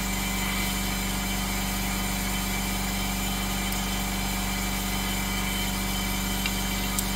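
Steady mechanical hum with a constant low tone, unchanging, and a faint tick near the end.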